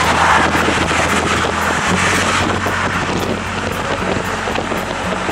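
A car driving along a street, heard from the passenger seat with the side window open: a steady rush of wind and road noise over the engine's low hum, which changes pitch about two seconds in.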